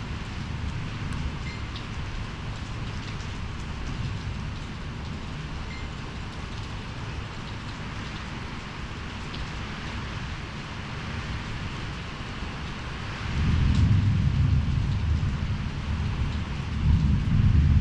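Storm rain falling steadily, with a deep low rumble underneath that grows much louder about two-thirds of the way through.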